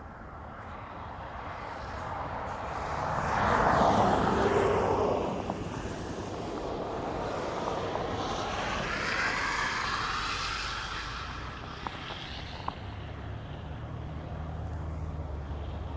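Road traffic: one vehicle passes loudest about four seconds in, and a second passes around ten seconds in with a gliding pitch as it goes by, then a low steady hum.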